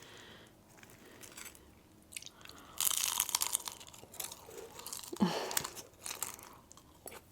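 Close-up crunching as someone bites into crispy fried rolled tacos and chews them, with a loud crunchy bite about three seconds in and another about five seconds in.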